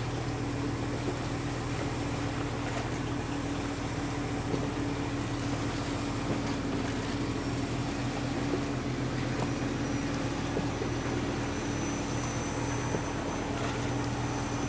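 Steady, low mechanical hum of a boat's motor running.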